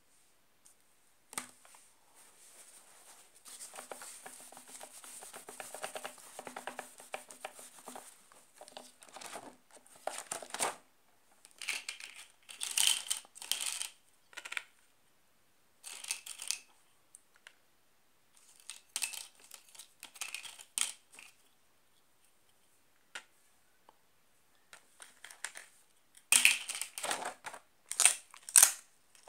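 Handling of a laminated activity binder: scratchy marker strokes on a laminated sheet, pages being turned, and small laminated cards being pulled off and set in place. These come as short rustling, scraping bursts with silent pauses between them, the loudest near the end.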